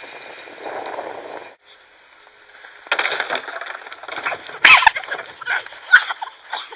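Board and hollow plastic barrels clattering and knocking as a rider rolls across the barrels and crashes onto the grass: a run of sharp knocks and thuds from about halfway in, loudest twice near the end.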